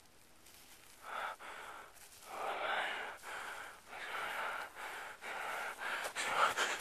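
A person breathing hard in ragged, gasping breaths. It starts about a second in and gets louder toward the end.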